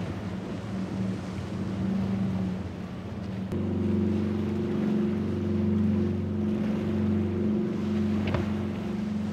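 Motorboat engines running at speed, with a steady engine drone over the rush of water. About three and a half seconds in the sound changes abruptly from an outboard-powered center console to a Regal cabin cruiser, whose engine tone is steadier and stronger. A short, sharp slap comes near the end.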